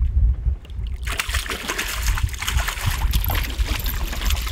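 A large hooked perch thrashing at the water's surface beside the boat, splashing hard from about a second in, over a low rumble of wind on the microphone.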